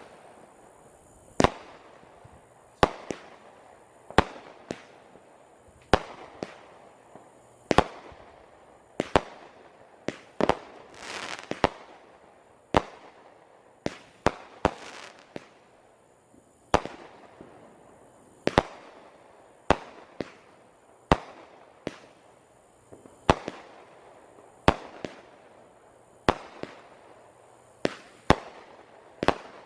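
Roman candles firing: a long run of sharp pops, roughly one every one to two seconds and irregularly spaced, some followed by a short hiss.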